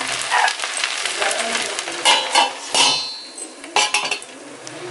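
Metal spoon scraping and clinking against a stainless steel pan as rice is stirred, then a steel lid set on the pan with a clang and brief metallic ringing, followed by another knock.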